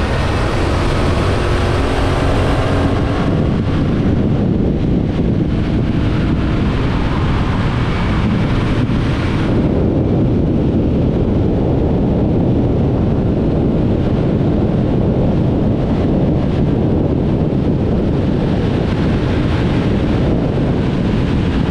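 Yamaha MT-07's parallel-twin engine pulling through the upper gears as the bike accelerates, its rising note soon buried under a heavy rush of wind on the microphone.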